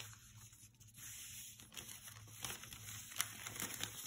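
Faint rustling and crinkling of a sheet of newspaper being folded and creased by hand, with scattered small crackles that come more often from about halfway through.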